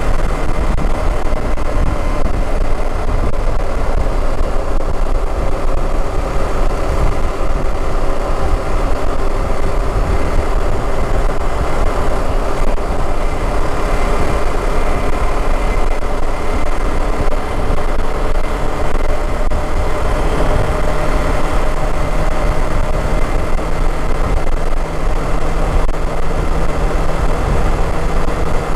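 Motorcycle engine running steadily while riding along, with heavy wind rumble on the camera microphone.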